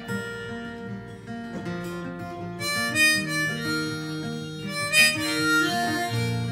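Live band music without vocals: acoustic guitar with a lead melody of held notes played over it, stepping from note to note. The lead is loudest in the middle of the passage, with two sharp accents.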